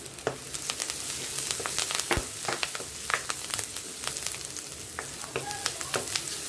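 Onions and fresh curry leaves frying in hot oil: a steady sizzle full of sharp crackles and pops, growing louder about a second in as the leaves hit the oil.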